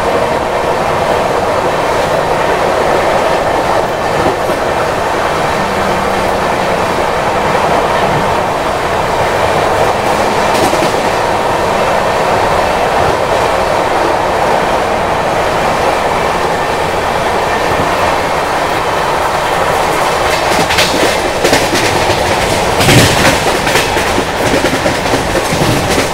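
Passenger express coach running at speed, heard at its open doorway: a steady rumble and rush of wheels on rails with rhythmic clickety-clack, and a few sharper, louder clanks about three-quarters of the way through.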